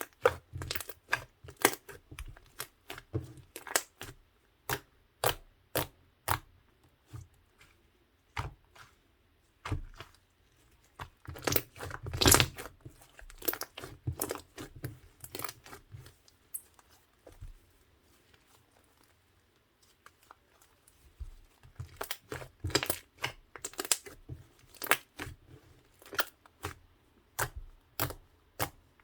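Slime being squished and pressed by hand, giving irregular sticky pops and clicks. A dense run of crackling comes about twelve seconds in, and there is a quiet pause of a few seconds past the middle.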